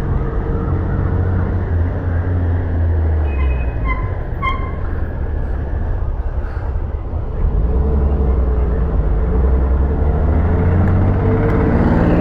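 Royal Enfield Shotgun 650's 648 cc parallel-twin engine running at idle with a steady low thrum, a little louder in the second half.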